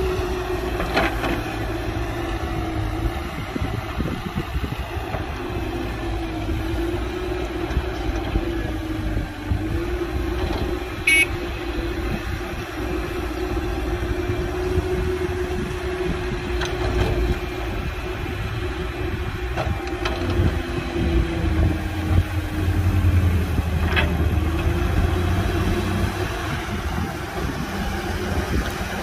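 Heavy diesel machinery running steadily, a low rumble with a wavering whine over it and a few sharp knocks. The rumble grows louder about three-quarters of the way through.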